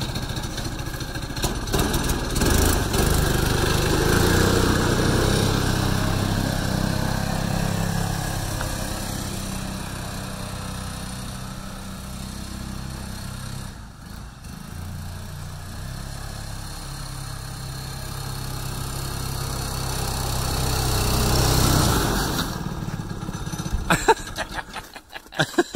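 Single-cylinder Predator 212 engine driving a snowmobile. It grows fainter as the sled rides away, louder as it returns, then cuts off suddenly about 22 seconds in.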